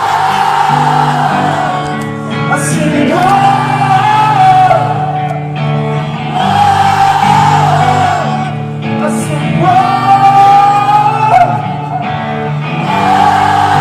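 Live band music with guitar and singing, in long sung phrases over steady chords, echoing in a large concert hall.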